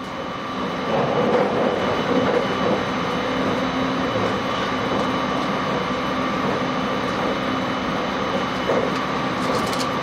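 Steady running noise inside the cabin of a JR West 681-series limited express train, the rumble of wheels on rails while the train is moving. It grows louder over the first second.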